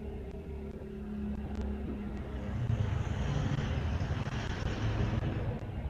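A motor vehicle's engine running with a low rumble and hum, growing louder about two and a half seconds in and easing off near the end.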